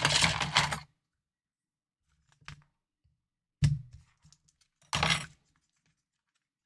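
Tweezers and small plastic parts of a handheld console being handled on a desk mat. A short clattering rattle comes first, then a faint tick, a sharp click about three and a half seconds in, and a brief rattle about five seconds in.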